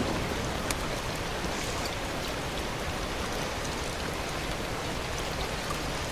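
Steady hiss of water, even and unbroken, with a few faint scattered ticks.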